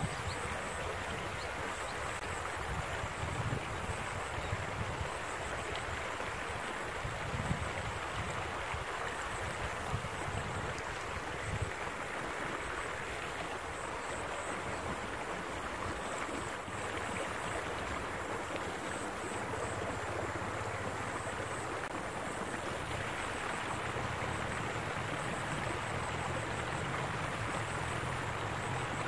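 Water rushing steadily along a concrete irrigation channel, with wind gusting on the microphone now and then.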